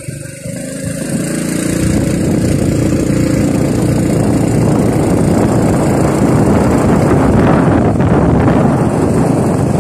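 Engine of a moving road vehicle pulling along, its note clear for the first second or so. Then a loud, steady rush of wind over the microphone builds up as speed rises and covers it.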